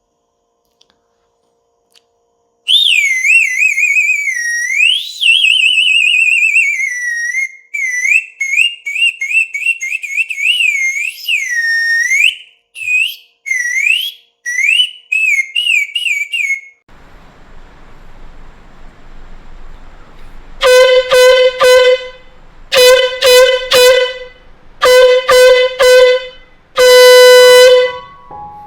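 Homemade toy horns being blown. First a high, wavering whistle-like note that bends up and down in long and short toots. Then, over a steady hiss, four loud horn blasts on one steady low note, the first three broken into quick honks and the last held.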